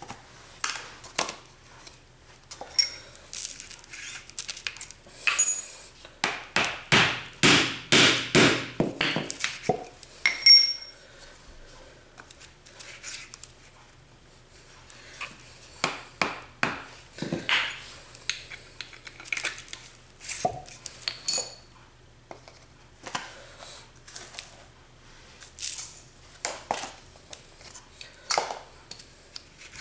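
Rocket-ramming tools being handled: a run of light knocks and taps, densest for a few seconds about a quarter of the way in, with a few short metallic clinks and pings. The sounds come from the funnel, spoon and rammer being worked in and around a rocket tube on its spindle while granulated black-powder fuel is loaded.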